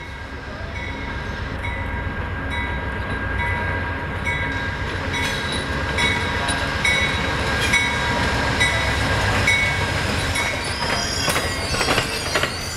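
Amtrak passenger train pulling into the station, led by a GE Genesis diesel locomotive: a steady low rumble with a few held tones and a short tone repeating about once a second. Sharp clicks and knocks start near the end as the cars roll past.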